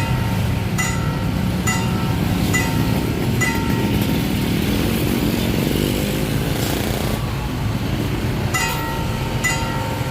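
Railway level-crossing warning bell dinging about once a second over the low rumble of a train passing. The dings are drowned out for a few seconds in the middle, then return.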